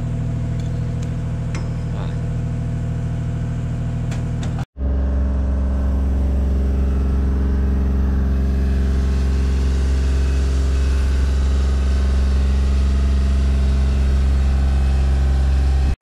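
Aerial boom lift's engine running steadily, with a few faint clicks. About five seconds in, the sound cuts off abruptly and resumes louder and deeper.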